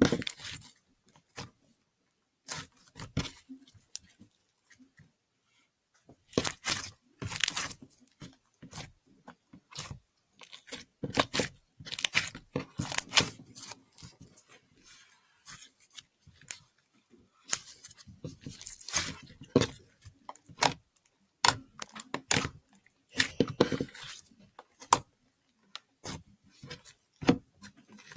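Homemade pink metallic slime made from clear glue being squished and worked. It gives irregular clusters of sharp clicks and pops, with short gaps between them.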